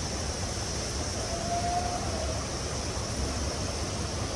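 Steady outdoor background noise: an even rushing hiss with a constant high band and a low rumble. About a second in, a faint thin whistle-like tone holds for about a second, rising slightly.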